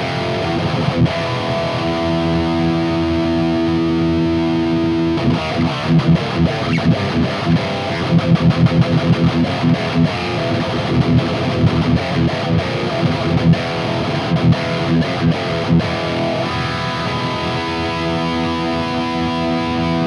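Heavily distorted electric guitar played through a Mooer Brown Sound preamp pedal with its gain turned up. Held chords ring out for a few seconds, then fast choppy riffing for about ten seconds, then held chords again near the end.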